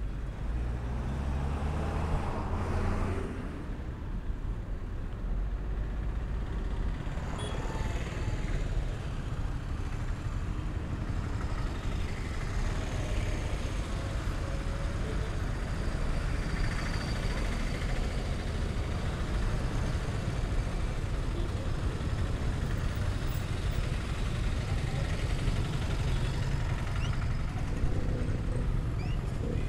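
Road traffic on a busy street: motor vehicles passing, one engine going by close in the first few seconds, over a steady rumble.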